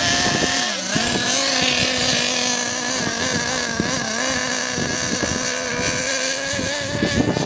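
Small nitro glow-fuel engines of radio-controlled buggies running at a high, steady pitch. The pitch dips briefly about a second in and again near the middle, then picks back up as the throttle is eased and reopened.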